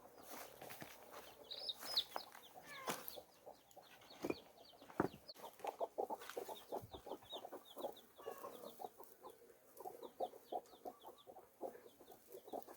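Birds calling: runs of short, quick chirps repeated many times over, fairly faint, with scattered small clicks.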